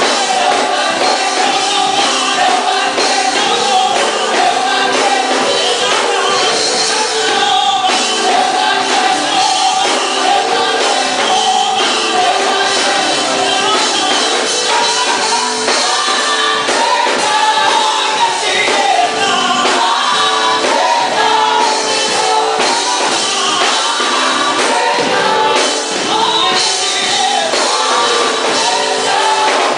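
Gospel choir singing a worship song into microphones.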